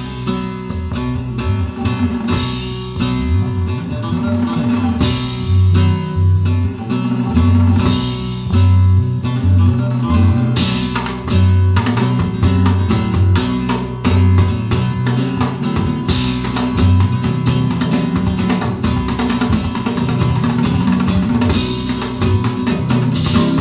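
Music played through Dali Ikon 5 mk2 loudspeakers and recorded in the room: a guitar-led piece with a strong, moving bass line and light drums, steady throughout.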